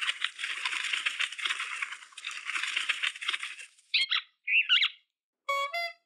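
Cartoon sound effect of a macaw's wings flapping, a fluttering rustle lasting about four seconds, followed by two short chirping squawks. Two brief pitched notes sound near the end.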